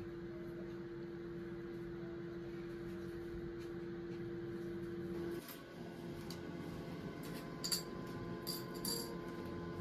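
Steady low hum of indoor room tone, which changes abruptly about halfway through, with a few light clicks near the end.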